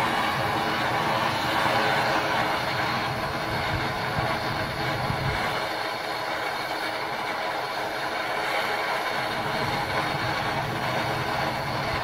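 Gas blowtorch burning steadily with a hiss, heating a stuck screw to free it.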